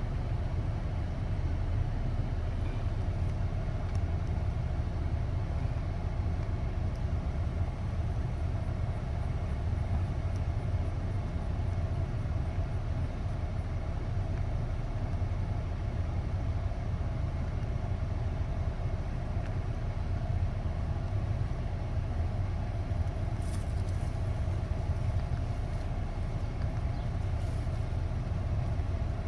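2014 Ford Escape's 1.6L turbocharged four-cylinder engine running steadily at idle while its cooling system is burped of air after a coolant change.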